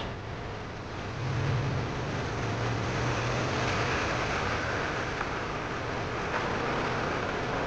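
Motorcycle riding along a road: steady wind and road rush with the engine running underneath. A low engine tone is stronger for a few seconds about a second in, then eases back.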